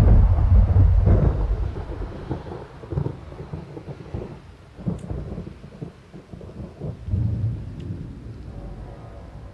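Thunder rumbling in the sky. It breaks in suddenly, loud and low, and rolls on for about two seconds, then weaker rumbles follow about three, five and seven seconds in.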